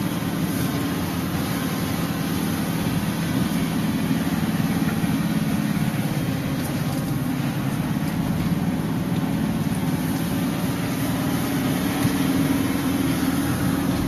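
Passenger van driving on a paved road, heard from inside the cabin: steady engine and tyre noise.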